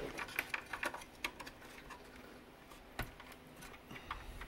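Faint small clicks and ticks of plastic cable connectors being handled and fitted to a SCSI hard drive inside an open computer case, with a sharper click about three seconds in.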